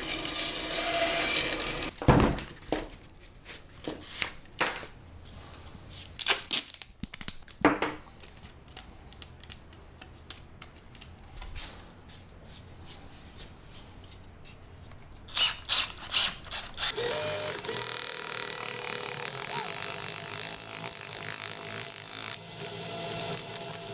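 Scattered clicks and knocks of tool handling, then about 17 seconds in a small power tool starts and runs steadily, sanding the inside of a silver ring band.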